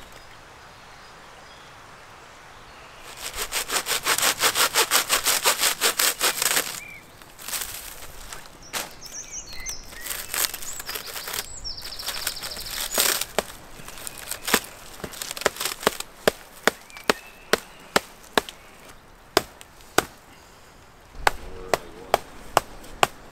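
Hand shears snipping through bundled thatching reed, a sharp crisp snap with each cut, about two cuts a second through the second half. Earlier comes a fast run of sharp clicks lasting a few seconds.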